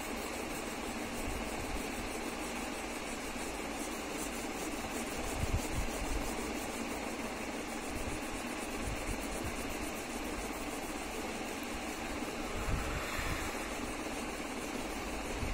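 Green wax crayon rubbed hard across paper, a steady scratchy rasp, with a few low thumps.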